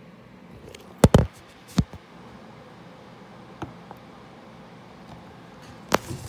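Handling knocks on a plastic jug: a few sharp knocks and taps over a faint hiss, the loudest a double knock about a second in and another near the end.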